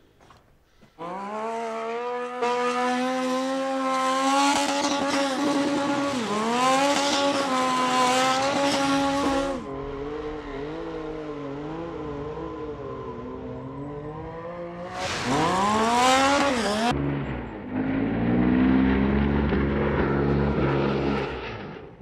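Streetbike engine revving hard through a burnout, the rear tyre spinning and squealing on the asphalt. It starts about a second in, holds at high revs with short dips, drops to lower revs near the middle, surges again with a hiss, then settles into a deeper, lower running near the end.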